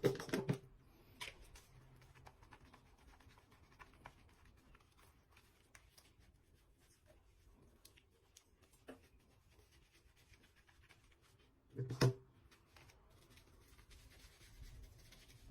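Mostly quiet room with faint scattered scratching and rubbing sounds, and one short louder noise about twelve seconds in.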